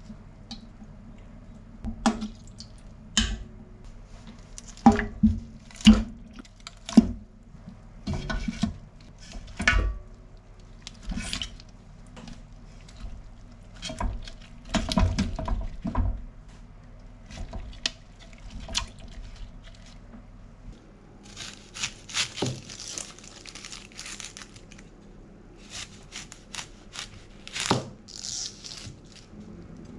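Kitchen handling sounds: metal tongs knocking and clinking against a stainless steel stockpot, and wet squelching as ingredients are packed into the pot, with a few seconds of hissing noise about two-thirds of the way through. Near the end a chef's knife cuts through an onion onto a plastic cutting board.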